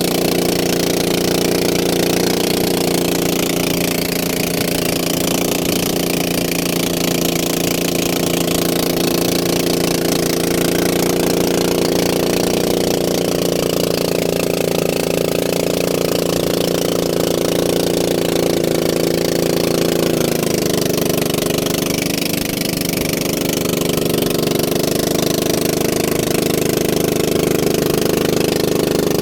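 A small engine running steadily over a constant hiss, its pitch shifting a little about twenty seconds in.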